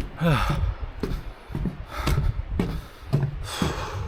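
A hiker's footsteps on a mountain trail, roughly two steps a second, with heavy breathing; a short falling sigh-like vocal sound right at the start.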